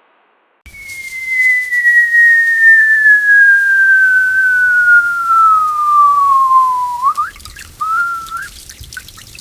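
Cartoon whistle sound effect: one long whistle note sliding slowly down in pitch for about six seconds, the classic cartoon falling sound. It ends in a quick upward flick, then a short wavering whistle note and a few faint clicks.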